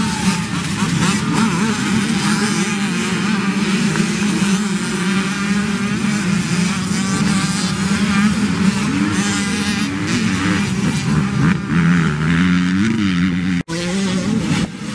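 A pack of youth dirt bikes running and revving together, engine pitch rising and falling as the riders accelerate away. The sound drops out for an instant near the end.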